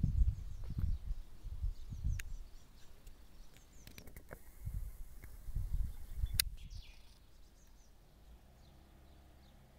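Outdoor ambience: irregular low rumbling bursts on the microphone with a few brief bird chirps, and one sharp click about six seconds in; it grows quieter over the last few seconds.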